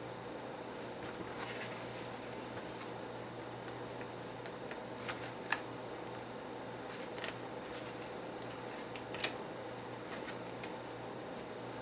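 Sheets of scrapbook paper being sorted and handled: scattered light rustles and clicks, the sharpest about five and nine seconds in, over a steady low hum.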